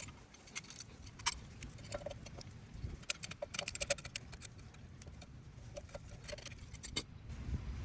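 Irregular light metallic clicks and clinks of hand tools and small bolts against the rear brake caliper as the hex bolts holding the electric parking-brake motor are worked out, busiest about three to four seconds in.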